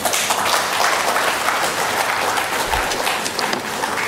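Audience applauding, breaking out all at once and easing off slightly near the end.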